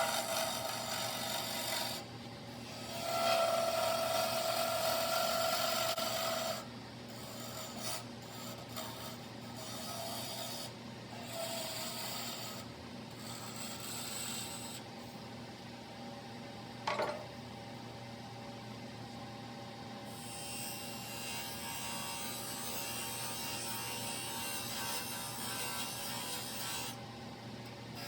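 Wood lathe running with a steady motor hum while a turning tool cuts the spinning wood stock in bouts of rasping, scraping noise, loudest from about three to six seconds in. A brief sharp sound comes about seventeen seconds in.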